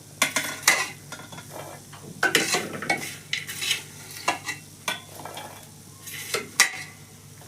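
Freshly popped popcorn being stirred and scooped out of a pressure cooker: dry rustling of the popcorn and scrapes against the metal, in irregular strokes.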